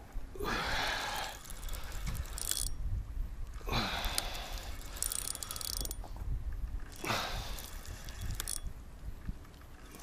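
Fishing reel being cranked in repeated spurts with a mechanical whirring and clicking, as a hooked fish is reeled in.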